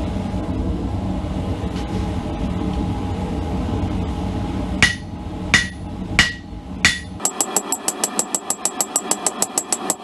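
A steady low roar, then four ringing hammer blows on steel about two-thirds of a second apart, then a fast, even run of lighter hammer strikes, about five a second.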